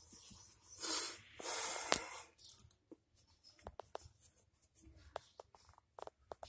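Two short bursts of rustling as a hand rubs over a cat's fur and the blanket under it, the second ending in a sharp click, then faint scattered ticks and clicks.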